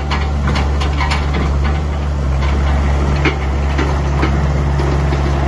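Diesel engine of a Doosan EXC55 mini excavator running steadily with a low drone, with irregular light clicks and knocks from the machine.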